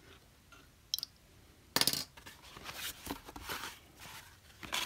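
Handmade watercolor-paper sketchbook being handled and turned over: a faint tick about a second in, then a sharp click just before two seconds, followed by paper and cover rustling.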